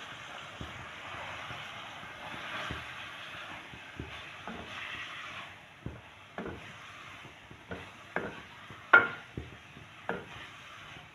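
Wooden spoon stirring kachnar buds through sizzling masala in a metal pot, with knocks and scrapes of the spoon against the pot. The sizzle fades about halfway, leaving scattered knocks, the loudest about three-quarters of the way through.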